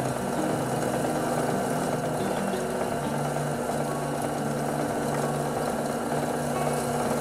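Drill press running steadily, its motor humming without a break while the bit cuts into a small workpiece clamped in a vise.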